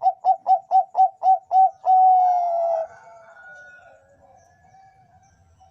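Perkutut bangkok (Thai-bred zebra dove) singing: a quick run of short coos, about four a second, that ends about two seconds in with a long, slightly falling note. Fainter coos follow.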